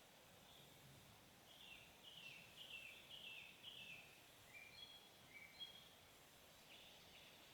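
Faint bird song: a quick run of about five short falling notes, then a few brief higher whistled notes, over a quiet background hiss.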